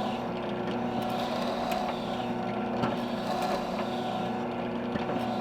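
Drill press motor running with a steady hum, with a few faint clicks.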